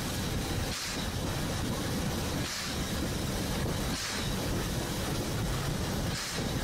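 Train running along the line: a steady low rumble, with a short hiss coming back about every one and a half to two seconds.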